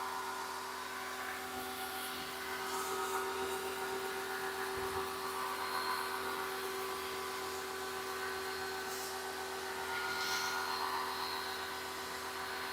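Pressure washer running steadily with a constant hum, its 15-degree nozzle spraying water in an even hiss to rinse foam off a truck.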